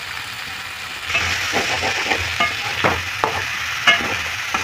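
Potatoes and fresh field beans sizzling in oil in a steel kadai while a perforated steel ladle stirs them. From about a second in the stirring gets louder, with repeated scrapes and clinks of the ladle against the pan.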